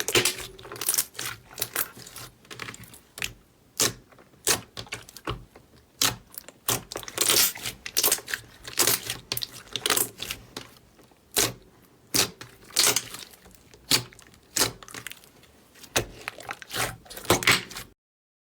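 Slime being squeezed and pressed by hand, giving irregular crackling clicks, pops and short crunches; it cuts off suddenly near the end.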